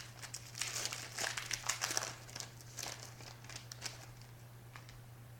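Plastic wrapper of a trading card pack being torn open and crinkled by hand, a dense crackle that thins out after about four seconds.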